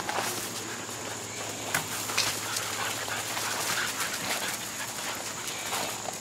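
American Bully puppies playing together on gravel: paws scuffing and crunching on the stones with a few scattered ticks, and soft dog sounds from the puppies.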